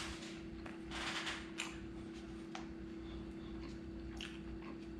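A person quietly chewing crispy homemade pizza, with a soft rustle about a second in and a few faint clicks, over a steady low hum.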